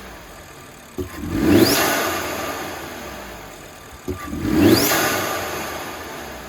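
Audi RS3 8P's turbocharged five-cylinder engine, breathing through a 034 Motorsport carbon intake, revved twice about three seconds apart. Each rev rises quickly in pitch with a rising whistle, then falls away slowly.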